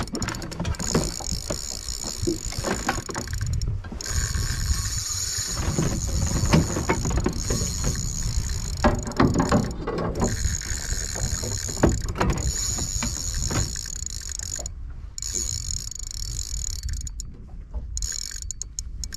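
Spinning reel whirring as it runs under the strain of a heavy fish on the line. The whir stops briefly about four times, over a low wind rumble.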